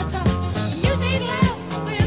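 Background music: a funk-style song with a steady drum beat, bass and singing.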